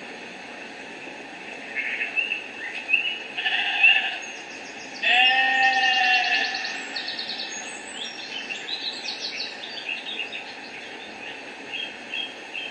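Recorded farm-animal sound effects played back through a small speaker: a sheep bleating about five seconds in, the loudest call, among shorter bird chirps and calls.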